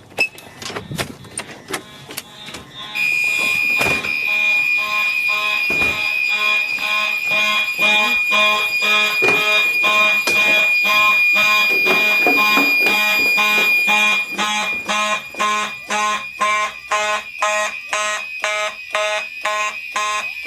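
Fire alarm horns sounding together on continuous after a pull station is pulled. After a few knocks, they come in about three seconds in as a loud, rapid pulsing over a steady high tone. The high tone drops out about 14 seconds in, leaving the pulsing.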